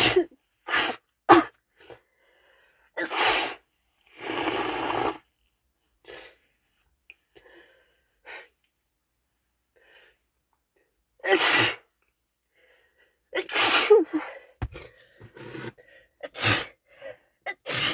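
A woman with a cold sneezing over and over: a quick run of sneezes at the start, a quiet stretch of several seconds, then another string of sneezes in the second half.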